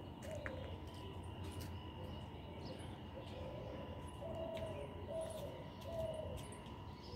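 A dove cooing faintly in the background, a series of short low coo notes, about six in all, over a faint steady hum.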